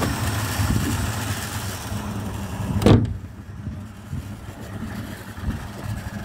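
The 1984 Ford Thunderbird's engine idles while still cold. About three seconds in, the bonnet is slammed shut with a single loud bang. After that the engine carries on more quietly and muffled under the closed bonnet.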